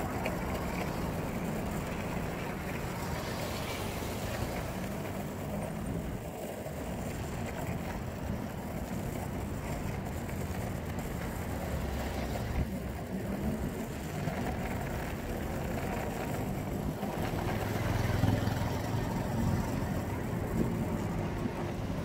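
Skateboard wheels rolling over road and paving on a downhill run: a steady rumbling rush, louder about eighteen seconds in.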